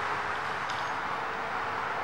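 Steady outdoor background noise, an even hiss with a faint steady hum and no distinct events.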